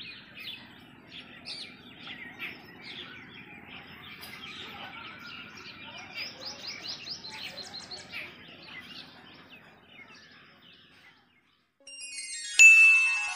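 Many small birds chirping and calling together in a morning chorus, over a faint low hum. About eleven seconds in the birdsong stops, and music starts with a sharp, bright chime.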